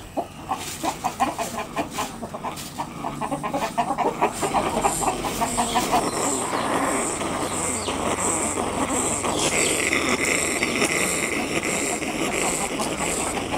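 Domestic chickens clucking: a quick run of short clucks in the first half, then busier, hissier sound with higher repeated notes from about six seconds in.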